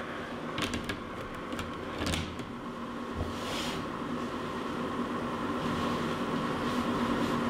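Clear plastic lid set onto a WMF Küchenminis food dehydrator with a few light clicks in the first couple of seconds, then the dehydrator's fan running with a steady hum.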